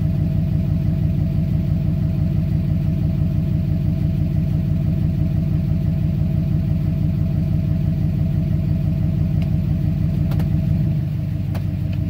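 Duramax V8 turbodiesel idling steadily at about 700 rpm, heard from inside the cab, as the transmission warms toward operating temperature. A couple of light clicks come near the end.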